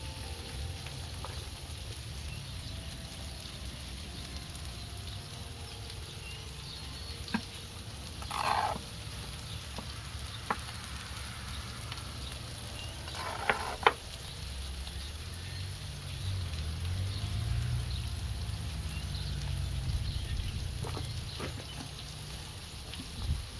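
Thick burger patty sizzling steadily as it fries, over a low rumble, with a few sharp clicks and two short, louder bursts of noise partway through.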